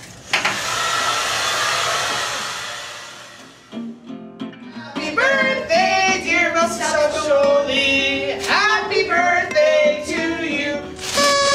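A hair dryer blowing, a steady hiss that starts suddenly and fades away over about three seconds. About five seconds in, a song with a singing voice starts.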